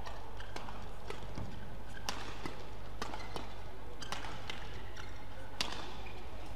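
Badminton rally: feather shuttlecock struck back and forth by rackets, a string of sharp, crisp hits irregularly spaced about half a second to a second apart, with players' footfalls on the court and a low steady hum underneath.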